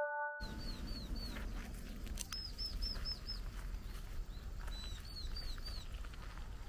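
A small bird calling in quick runs of four or five high chirps, a run about every two seconds, over a low steady outdoor rumble. The last notes of a chime ring out in the first half second.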